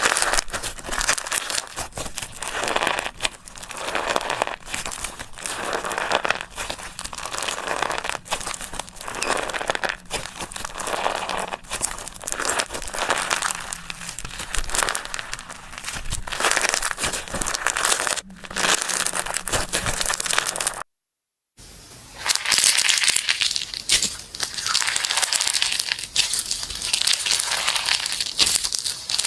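Slime being squeezed and stretched by hand: dense crackling and popping that comes in repeated swells. A brief cut to silence about two-thirds of the way through, after which the crackling is brighter.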